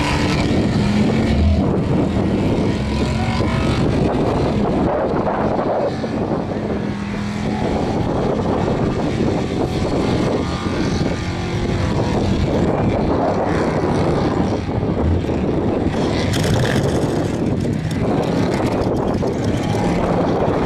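Holden VK Commodore's V8 held at high revs through a burnout, its spinning rear tyres squealing on the bitumen.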